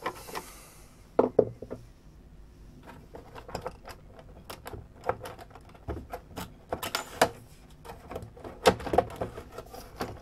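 Top cover of a Digimess UZ2400 frequency counter's plastic case being worked loose and lifted off by hand: a run of irregular plastic clicks and knocks, a few of them louder.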